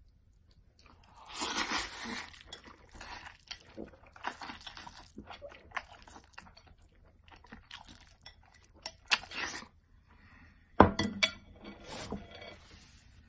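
A man eating noodles close to the microphone: irregular wet mouth sounds of eating and chewing, with a few sharp clicks near the end.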